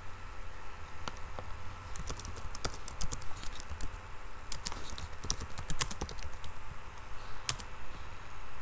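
Computer keyboard typing: quick runs of key clicks about two seconds in and again from about four and a half to six and a half seconds in, with a last single click near the end.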